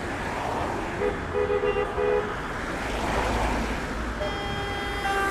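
City street traffic passing steadily, with a car horn giving about four short toots about a second in. Another horn sounds and is held near the end.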